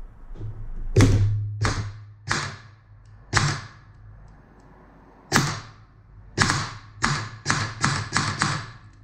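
An LCT V3 airsoft gearbox with a Jefftron Leviathan optical trigger, out of its receiver and test-fired on battery power: about ten sharp single shots. Four come spaced out over the first few seconds, then after a pause six more follow in quicker succession.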